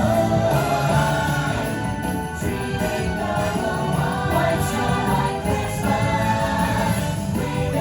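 Christmas parade music playing over the park's sound system: a choir singing with jingle bells.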